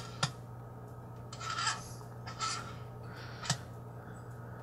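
Dial of a variable autotransformer (variac) turned by hand: several short rasping rubs and a couple of sharp clicks from the knob and its sliding contact, over a steady low hum.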